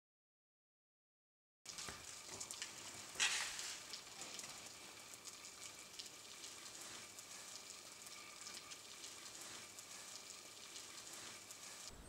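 Faint steady rain falling on wet paving: a soft hiss full of small drop ticks, starting after nearly two seconds of silence, with a brief louder swell about three seconds in.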